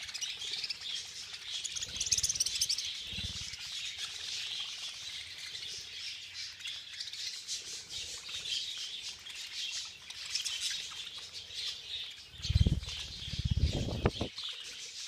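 A flock of budgerigars chattering continuously, with many overlapping high chirps and warbles. Twice there are louder low fluttering thumps: about two seconds in, and near the end.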